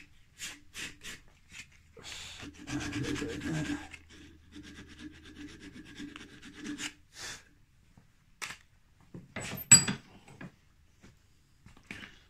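Sandpaper rubbed by hand on the coped end of a wooden glazing bar, cleaning wispy fibres out of the corners of the cut: a few short strokes, then a stretch of quick back-and-forth rubbing lasting about five seconds. A single sharp knock comes about ten seconds in.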